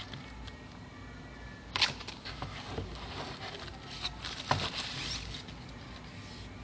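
Hands handling a small smartphone box and its packaging: scattered clicks, taps and light rustles, with a sharper click about two seconds in and another near the middle.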